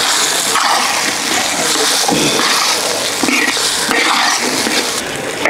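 Beaten egg sizzling as it is poured into hot oil in a large wok and stirred with a metal spatula: a loud, steady frying hiss.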